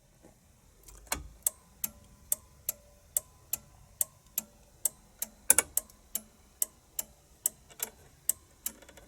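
Turn-signal flasher relay of a 1975 Ford E350 motorhome clicking steadily, about two clicks a second, with a louder clack near the middle.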